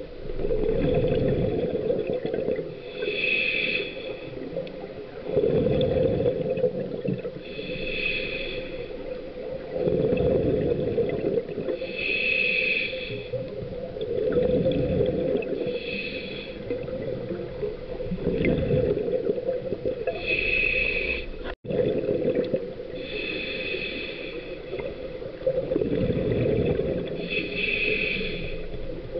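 Scuba diver breathing through a regulator underwater: a slow, regular cycle of a hissing inhale through the demand valve followed by the low bubbling rumble of exhaled air, a breath about every four to five seconds. The sound cuts out for an instant about three quarters of the way through.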